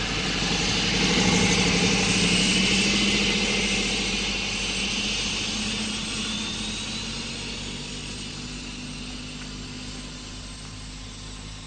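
Hovercraft engines and propellers running in a steady drone that swells briefly, then fades away gradually.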